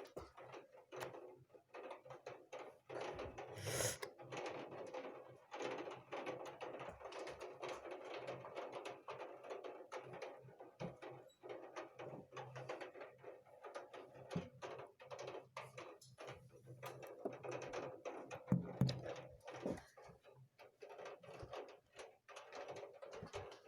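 Heavy rain: a dense, irregular patter of drops tapping on a hard surface, with louder single knocks here and there.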